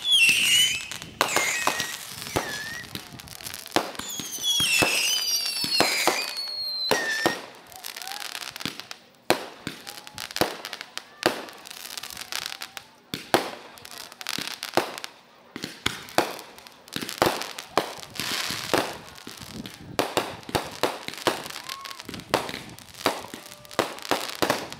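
Aerial fireworks display: a rapid, irregular run of sharp bangs and crackles as shells burst overhead, going on without a break.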